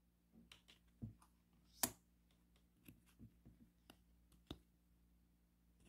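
Faint, scattered clicks and taps of a tarot deck being handled as one card is moved from the front of the deck to the back; the sharpest click comes about two seconds in.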